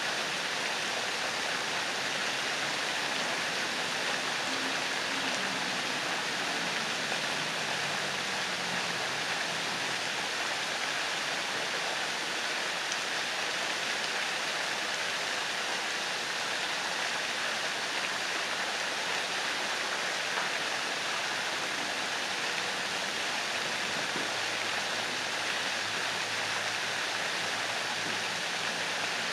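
Ornamental fountain jets splashing back into a pond: a steady, even rush of falling water.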